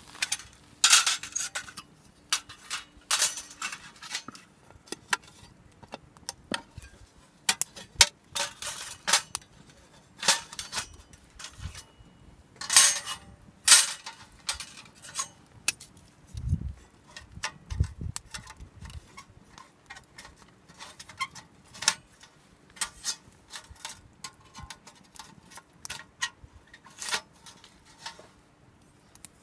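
Camp cookware and metal gear being handled: scattered clinks and clatters at irregular intervals, with two dull low thumps just past halfway.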